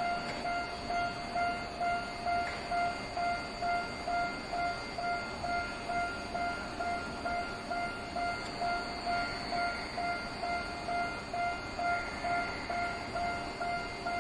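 Japanese railway level-crossing warning bell ringing steadily, a repeated clanging tone about twice a second, signalling that a train is approaching or passing.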